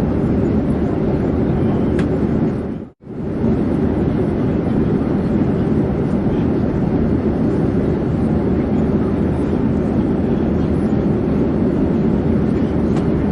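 Steady, even drone of an airplane in flight, heavy in the low range. It cuts out for a moment about three seconds in and then resumes unchanged.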